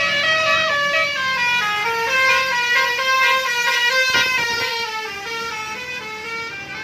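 Bus's basuri telolet horn playing a melody, several horn tones sounding together and stepping from note to note.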